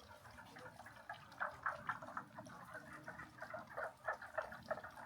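Frogs calling together: a dense chorus of short, quick croaks, several a second, that gets louder about a second and a half in.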